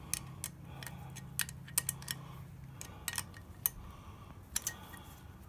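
Irregular small metallic clicks and taps, about a dozen, as the throttle cable's adjuster nut on a Kawasaki KLR650 carburetor is tightened by hand and tool. A faint low hum runs underneath and stops about halfway through.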